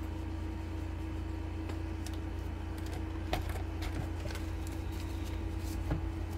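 Faint rustling and light taps of paper banknotes and a marker being handled on a desk, over a steady low hum.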